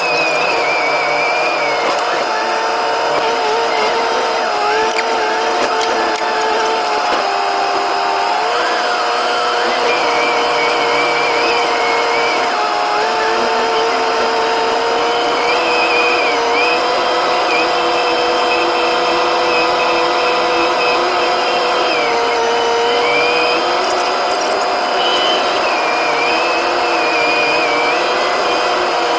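Trail-grooming machine's engine running steadily at working speed: a constant loud machine whine whose pitch wanders slightly up and down over a steady rumble.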